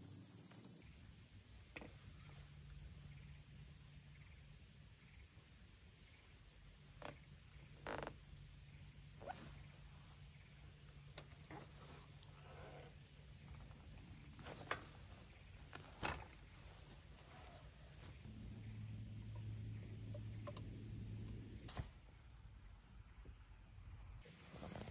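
A steady, high-pitched chorus of crickets, with a few light knocks and clicks as the bicycle is turned over and rolled around.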